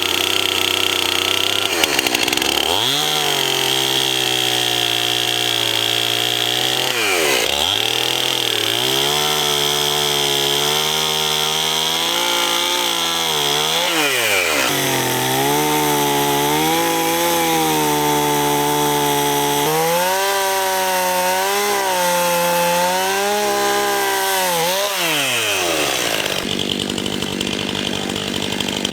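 Two-stroke chainsaw at full throttle cutting into a dead tree trunk. Its engine speed sags and recovers about five times as the chain bogs in the cut, then drops back to idle near the end.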